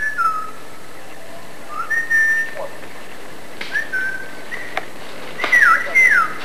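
Whistling: a string of short whistled notes, some held on one pitch and others sliding downward, coming at uneven intervals. The loudest two falling notes come near the end.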